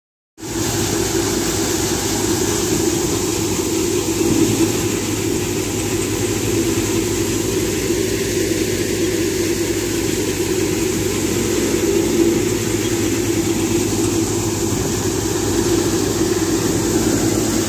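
A tractor-powered wheat thresher running steadily under load as straw is fed into it. Its engine and threshing drum make one even, unbroken machine hum.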